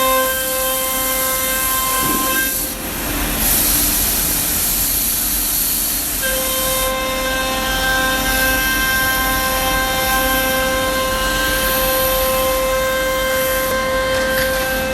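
A CNC router's spindle whining at a steady pitch as the bit cuts plywood, with a hiss of cutting noise. The whine breaks off about two and a half seconds in, giving way to a rougher rushing noise, and returns around six seconds.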